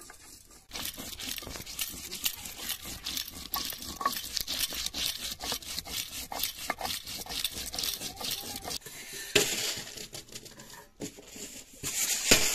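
Hand-held grinding stone rubbed back and forth on a flat stone slab (sil-batta), crushing red chillies and spices: a gritty scraping and crunching that stops about nine seconds in.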